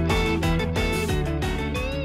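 Music: guitar over a steady beat.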